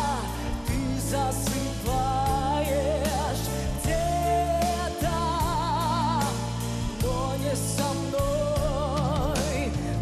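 A woman singing a slow ballad into a microphone, holding long notes with a wide vibrato, over a live band with a steady drum beat and bass.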